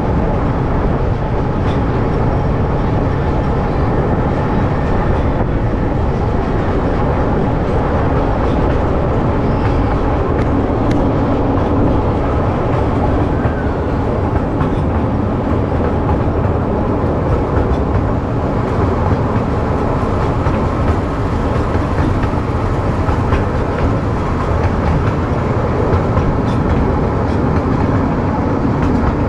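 Miniature park train running steadily along its track, heard from an open-sided passenger car: a continuous rumble and rattle of the cars on the rails, with a few faint ticks.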